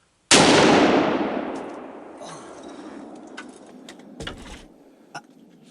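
.243 hunting rifle fired once at a deer, a single sharp report that echoes away over a couple of seconds. A few faint clicks and a low knock follow.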